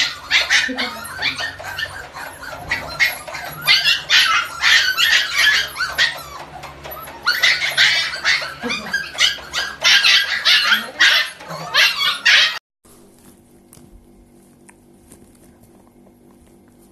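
A crowd of husky puppies yipping, barking and whining all at once, high-pitched and overlapping, clamouring to be fed as bowls of food are carried in. The racket cuts off abruptly about three-quarters of the way through, leaving only a faint background.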